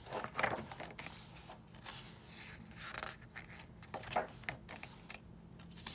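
Pages of a K-pop album photobook being turned by hand: paper sliding and rustling, with a few soft taps and one longer swish about halfway through.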